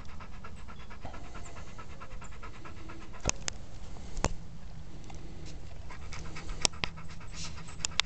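A retriever panting quickly and steadily with its mouth open, about six breaths a second. A few sharp clicks sound over it, two of them in the middle and three near the end.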